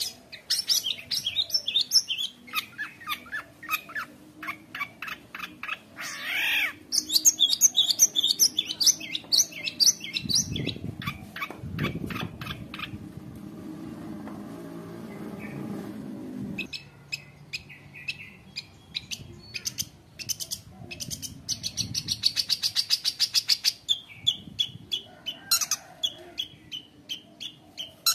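Long-tailed shrike (cendet) singing a fast, nonstop chattering song full of mimicked phrases of other birds, with a softer, lower stretch in the middle.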